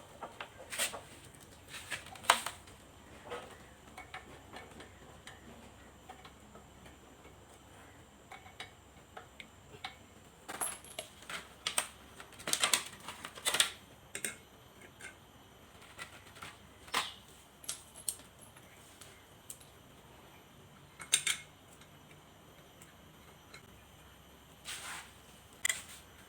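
Scattered sharp clicks and light clinks of hard objects being handled, coming in small clusters with pauses between; no engine running.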